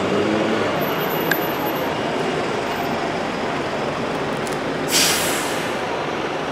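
Double-decker bus engine running steadily close by. About five seconds in there is a short, sharp hiss of compressed air from the bus's air brakes.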